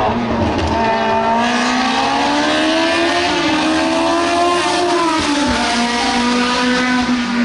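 Formula race car engine running at high revs, its pitch climbing for a few seconds and then dropping back about five seconds in.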